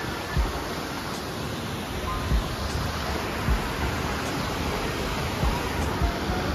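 Steady rushing roar of a large waterfall falling onto rocks, with occasional low thumps.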